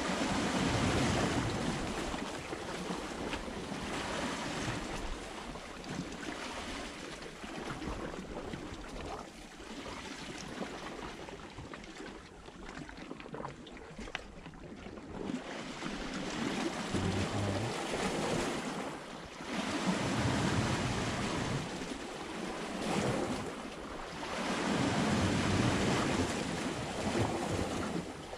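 Sea waves washing against a rocky shore, rising and falling in swells every few seconds, with wind blowing on the microphone.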